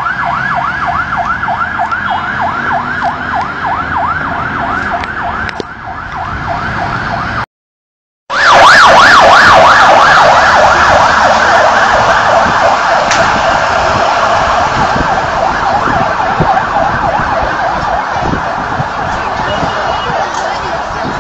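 Fire engine siren sounding a fast rising-and-falling yelp, about four sweeps a second. It cuts out for about a second near the middle, then comes back louder and fades slowly.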